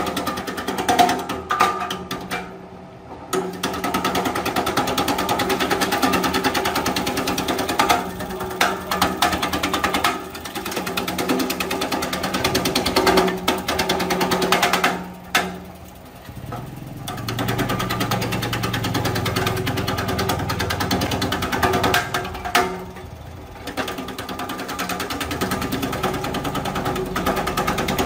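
Small electric herb-slicing machine with a 2.2 kW single-phase motor, its spinning disc blades chopping hand-fed branches into slices: a fast, even clatter of cuts over the motor's steady hum. The cutting drops away briefly about 3, 16 and 23 seconds in, leaving the motor running alone, then picks up again as the next stick goes in.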